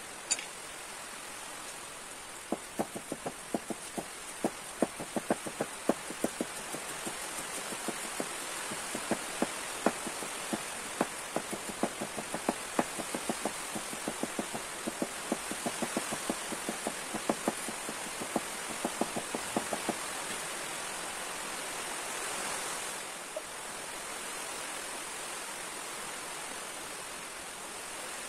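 Green bamboo being cut with a blade: a run of short, sharp, irregular knocks, a few a second, that stops about twenty seconds in, over a steady hiss.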